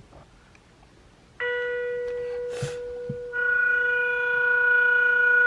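A children's sound book's electronic speaker playing a sustained bell-like note, B ('si'), starting about a second and a half in; about two seconds later more overtones join and it grows louder.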